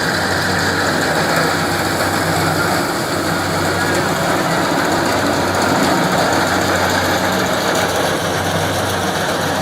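Kubota Harvest King combine harvester running steadily at working speed: a loud, even engine hum under a dense mechanical noise.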